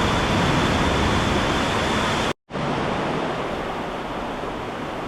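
Waves surging into a sea cave: a steady, loud wash of surf noise. It breaks off completely for a moment about halfway through, then carries on a little quieter.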